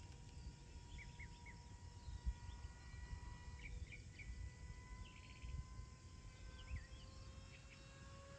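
Faint outdoor ambience: small birds chirping in short bursts over a low rumble, with a faint steady hum that rises slightly in pitch near the end.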